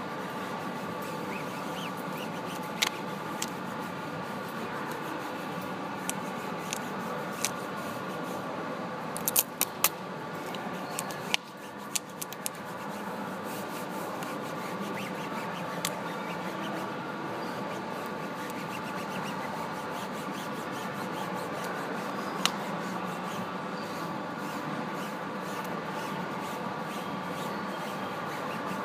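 Steady background hum under faint rubbing and scraping as a protective film skin is handled and smoothed onto a laptop, with scattered sharp clicks, a cluster of them about nine to twelve seconds in.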